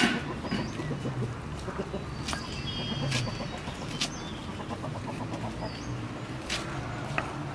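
Kitchen knife chopping fresh green herbs on a wooden cutting board, sharp taps at uneven intervals. Hens cluck and small birds chirp in the background.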